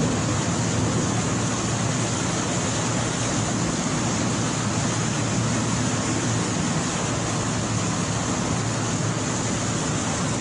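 Heavy downpour: a steady, unbroken hiss of rain on a flooded street, over a constant low rumble.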